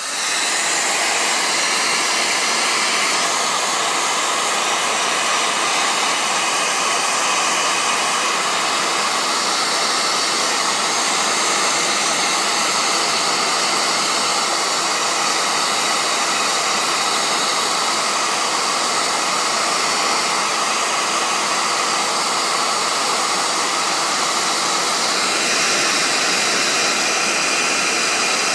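Hot air soldering gun blowing steadily, a loud even rush of air and fan noise, reflowing solder paste on surface-mount ICs. It switches on right at the start.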